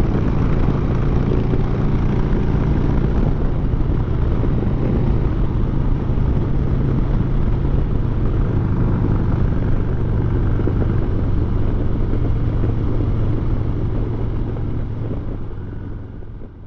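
2018 Harley-Davidson Heritage 114's Milwaukee-Eight 114 V-twin running steadily at highway cruising speed, mixed with wind and road noise; the sound fades out near the end.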